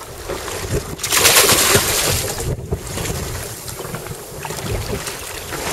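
Wind buffeting the microphone over the rush of the sea against a boat, with a louder gust from about a second in that lasts about a second and a half.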